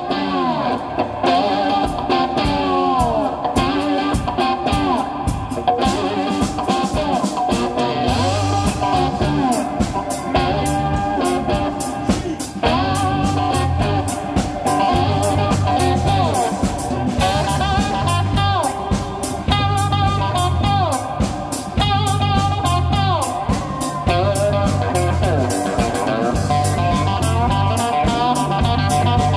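Cigar box guitar played with a slide in a funky blues groove, its notes gliding up and down in pitch. A bass guitar and drums play along, with the bass line coming in strongly about eight seconds in.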